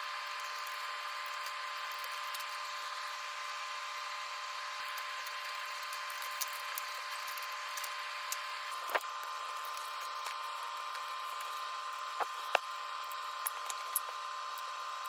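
Sub-Zero refrigerator's machine compartment running with a new condenser fan motor spinning: a steady motor whine with no grinding or squeal, the sign that the failed fan bearing is cured. A few sharp clicks come in the second half.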